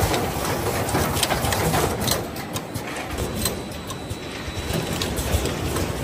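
Automatic plug crimping machine line running: a steady mechanical hum with irregular sharp clicks and knocks from its pneumatic stations working.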